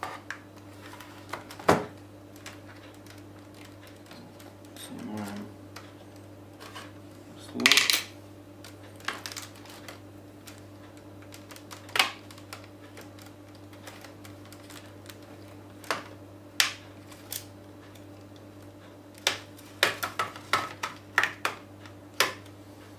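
Plastic clicks and knocks from a Samsung NP300V5A laptop's case as it is turned over, set down and worked at along its edge. The knocks come one at a time, with a quick run of clicks near the end. A low steady hum runs underneath.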